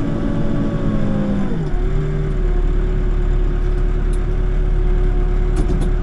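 Backhoe's diesel engine running. About a second and a half in, its pitch drops as it slows, then it holds steady at the lower speed.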